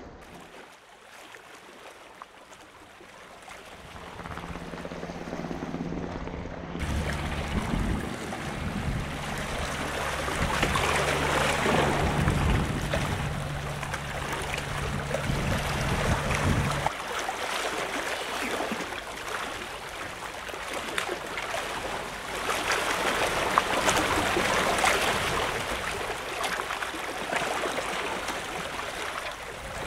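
Sea water sloshing and lapping against a seawall, with wind, swelling and easing in waves. A low steady hum runs underneath and cuts off abruptly about 17 seconds in.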